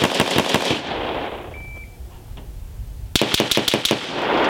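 Rifle fired in fast strings of shots. The first string runs through about the first second and trails off in echo. A short faint beep comes about a second and a half in, then a second quick string of about seven shots a little after three seconds in.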